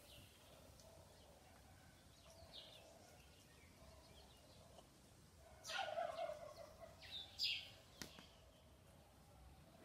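Faint animal calls: short descending chirps, a louder rough call about six seconds in and a shorter one about a second later, with a single click near the end.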